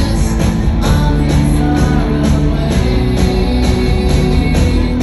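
Live rock band playing, electric guitars over a steady beat of about two strokes a second.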